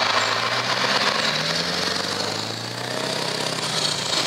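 Scania truck's V8 engine with an open, unsilenced exhaust pipe giving a rough, rapid-pulse rumble as the truck drives past; the engine note rises a little about a second and a half in, then eases off.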